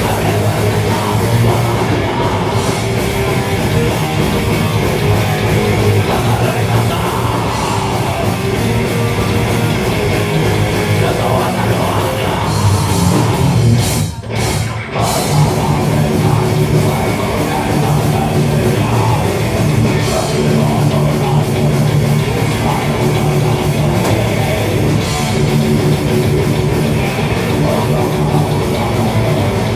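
Thrash metal band playing live: distorted electric guitars, a drum kit and a vocalist singing into a microphone. The loudness dips briefly about halfway through.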